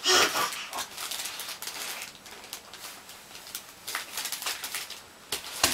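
Newspaper on the floor crinkling and rustling in short, irregular bursts as a crawling baby and a large python shift on it, with a sharp knock near the end.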